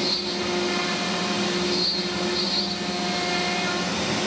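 CNC router spindle running a solid carbide spiral flute plunge bit through pre-finished birch plywood, cutting a shallow pocket. A steady hum with a high whine that comes and goes.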